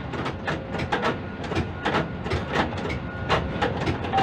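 Quay crane machinery heard from the operator's cab: irregular rapid clicking and rattling, several clicks a second, over a steady low rumble.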